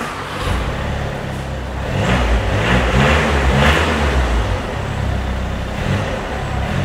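Background music fading in: a cinematic track with a deep held bass, a repeating low melodic figure and soft swells about every half second.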